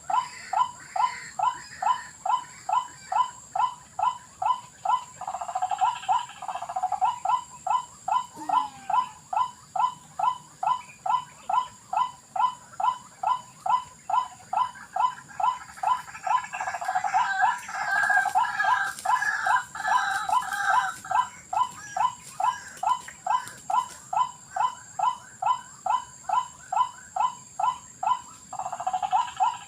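White-breasted waterhen calling: a long run of repeated croaking notes, about two and a half a second, with stretches of denser, overlapping calling.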